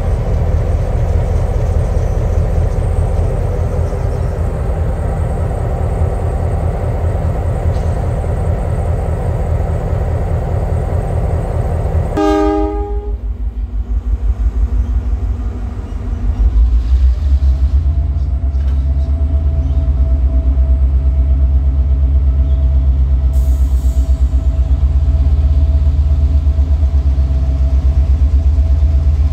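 Diesel locomotives on a freight train passing close by, their engines giving a heavy, steady rumble. About twelve seconds in the sound cuts off abruptly to a quieter stretch. A diesel locomotive then approaches, its low engine rumble building, with a steady whine joining it.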